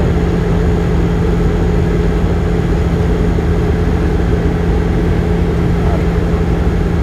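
Cabin noise of a Bombardier Q400 turboprop in flight, heard beside the window next to the propeller: the steady drone of its Pratt & Whitney PW150A engine and six-bladed propeller, with a constant low hum and no change in pitch.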